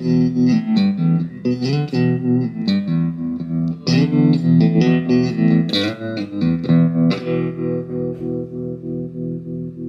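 Electric guitar played through a Moody Sounds tremolo pedal into a Marshall JVM combo amp: chords and short note runs, the volume pulsing evenly about three times a second. A last chord rings out from about seven seconds in, still pulsing as it fades.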